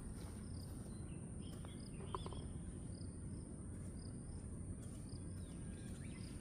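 Outdoor ambience: a steady high-pitched insect drone over a low rumble, with a few faint short chirps and a brief call about two seconds in.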